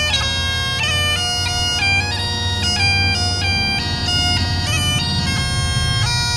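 Bagpipes playing a tune: a melody of changing notes over one steady drone note.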